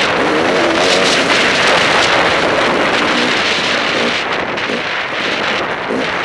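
Enduro motorcycle engine running as the bike rides a trail, its pitch rising and falling with the throttle in the first second or so, with wind buffeting the microphone.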